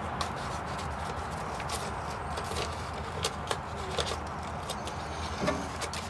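Scissors snipping paper: a scatter of light, sharp snips and paper crinkles over a steady low background.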